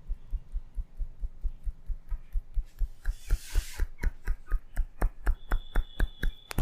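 A barber's hands tapping rapidly on a person's head in a tapping head massage, about five strokes a second. The strokes are dull thuds at first and turn into sharper, crisper slaps about two seconds in, with a short swish of rubbing about three seconds in.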